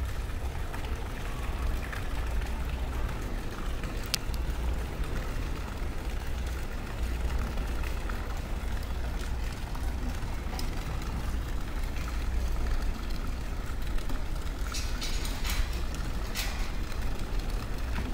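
Outdoor background noise: a steady low rumble under a light hiss, with a few short sharp sounds near the end.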